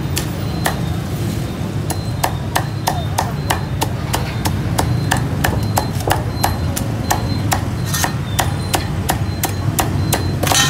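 Cleaver chopping roast pork: a steady string of sharp chops, about two to three a second, with a quicker run of strikes a couple of seconds in, over a steady low hum of street traffic.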